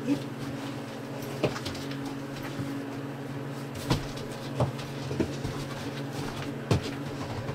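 Upholstered foam back cushion being fitted into an RV dinette seat: a handful of short knocks and bumps as it is pushed into place, the sharpest about four seconds in and near the end, over a steady low hum.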